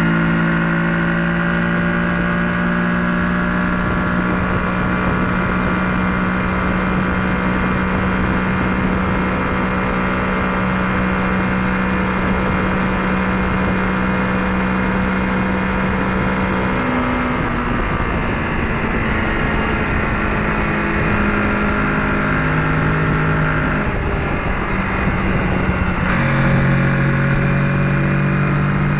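Kawasaki Ninja 650's parallel-twin engine running steadily at highway speed, with wind rush over it. About two-thirds of the way in the engine note drops and wavers, and near the end it settles at a lower steady pitch and gets slightly louder.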